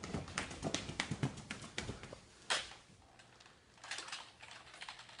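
Quick footsteps of socked feet on a concrete floor, then one sharp knock about two and a half seconds in, followed near the end by a run of quick computer-keyboard key clicks.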